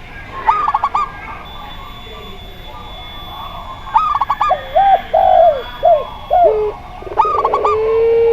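Several doves cooing: zebra doves give short bursts of quick, high, bubbling notes three times, Javan spotted doves give a run of lower arched coos in the middle, and near the end a barbary dove starts one long, drawn-out, nearly level coo.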